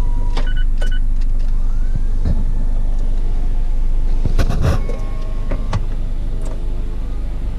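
Mazda MX-5's electric side window motor lowering the glass, a faint rising whine over the car's steady low engine and road rumble. Two short electronic beeps come near the start, and a few knocks come about four and a half seconds in.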